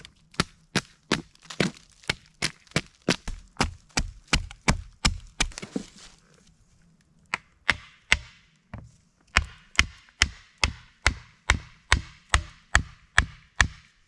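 Wood being chopped with a hand blade or hatchet in quick, even strokes, about three to four a second. The strokes come in two long runs with a short break near the middle.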